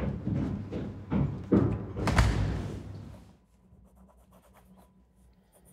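A front door being pushed shut, with a loud thud about two seconds in that dies away. Then faint scratching of a felt-tip pen on paper.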